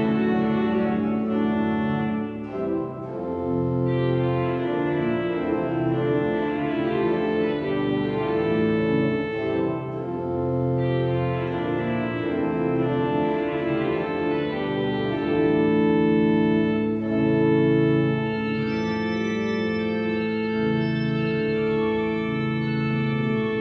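Church pipe organ playing a Swedish storpolska (folk dance tune), full chords moving over a long-held low note.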